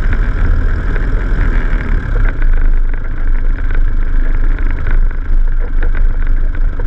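Vehicle engine running at low speed while driving over a rocky dirt track, heard close up from the bonnet, with a steady low rumble and scattered short knocks and rattles from the wheels and body on the stones.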